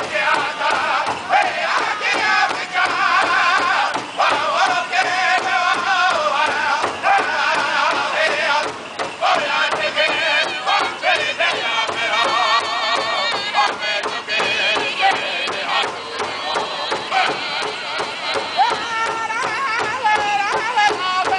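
A powwow drum group: several men sing a high chant together with a wavering pitch, over a steady beat on a large shared powwow drum that they strike together.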